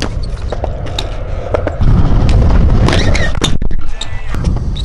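Low wind rumble on the microphone, with scattered clicks and knocks from a BMX bike on concrete. The rumble grows louder about two seconds in and drops back near the end.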